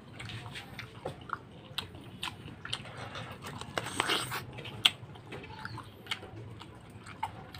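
Close-up mouth sounds of biting into and chewing the tough flesh of an unripe soursop (guyabano): wet clicks and smacks, with a louder bite about four seconds in.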